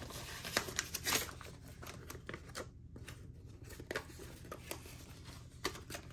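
Paper banknotes rustling and flicking as bills are handled and stacked by hand: a string of short, crisp rustles and snaps.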